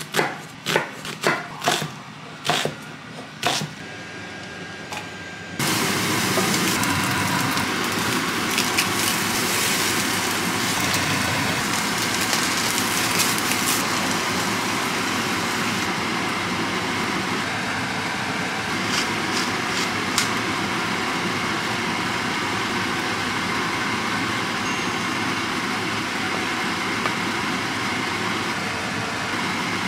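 A chef's knife chopping an onion on a wooden chopping board, a quick run of sharp knocks. About five seconds in it gives way to steady sizzling of food frying in a pan, with a wooden spoon stirring now and then.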